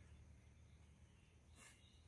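Near silence: a faint steady low background hum, with one brief faint rustle about a second and a half in.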